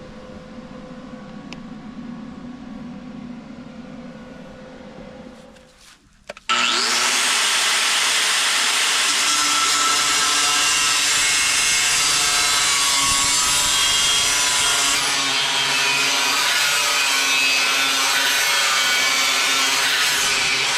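A handheld power grinder spins up about six and a half seconds in and runs on steadily, loud and hissing as it grinds or cuts steel.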